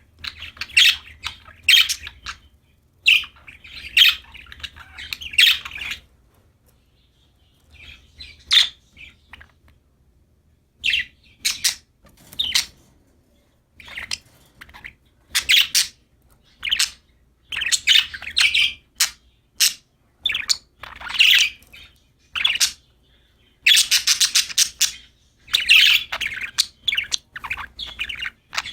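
Budgerigars (parakeets) chirping in quick clusters of short, high calls, broken by pauses of a second or two.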